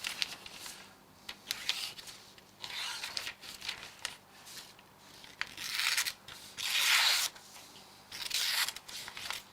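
Stainless folding-knife blade slicing through a thin catalog page, in about five separate rasping strokes of half a second to a second each.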